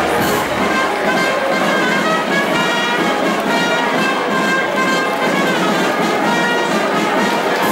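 Brass band playing, several horns holding sustained notes together in chords.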